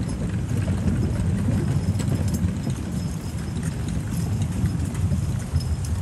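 Footsteps of people walking along a wooden footbridge and forest trail, over a low, uneven rumble on the microphone.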